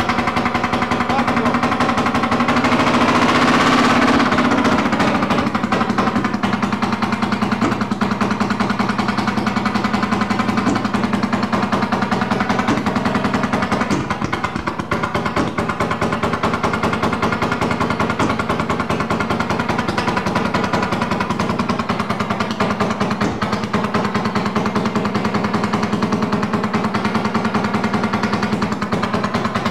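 Fairmont M19 speeder's horizontally opposed two-cylinder two-stroke engine running with a fast, even popping beat. It grows louder a few seconds in, as if revved, then settles back to a steady run.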